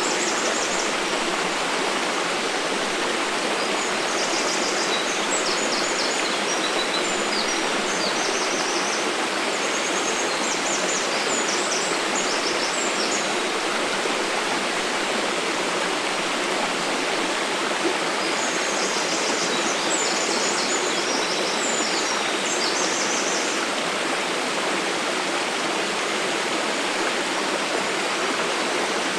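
Waterfall rushing steadily, an even roar of falling water. Small birds chirp in several spells of rapid high notes over it.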